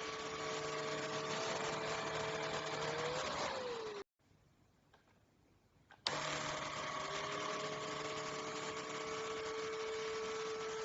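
Enolux K7 Pro cordless vacuum cleaner's motor running with a steady whine. It cuts out abruptly about four seconds in, then about two seconds later switches back on with a click, the whine rising as the motor spins up to speed.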